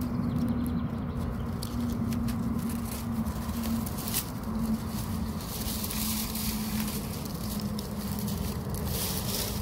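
Dry twigs and grass crackling and rustling in scattered clicks as the forest floor is handled, over a steady, slightly wavering low drone and wind on the microphone.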